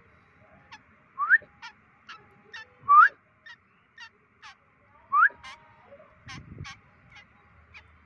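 Young white-breasted woodswallow giving three loud, short rising calls while being hand-fed from tweezers, typical begging calls, with quick sharp ticks between them.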